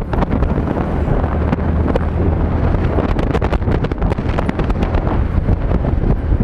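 Wind buffeting and crackling on the microphone of a moving motorcycle, over the steady low hum of its engine at cruising speed.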